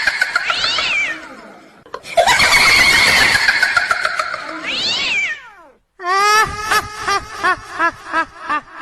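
Ghost ringtone sound effect: two long, high-pitched wailing shrieks that bend up and down in pitch, then about six seconds in a slow, pulsing evil cackle of about three pulses a second.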